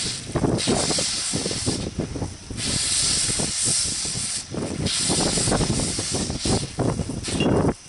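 Water hissing as it sprays from a leak at a joint in a black plastic water pipe. The spray comes in surges, strengthening and easing every second or two.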